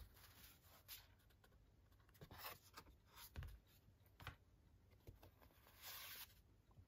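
Near silence with faint handling sounds of stiff cardboard art cards: a few soft taps and clicks, and a brief sliding rub of card against card near the end.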